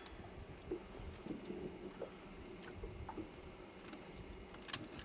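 Faint clicks and small handling noises against a low background hush, as a hook is worked out of a pike's mouth in a boat.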